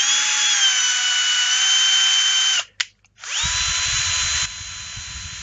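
Cordless drill turning a tapping bit to cut threads into cast epoxy resin. Its motor runs twice, each time spinning up to a steady high whine for about two and a half seconds, with a short stop between; the second run has a low rumble under it.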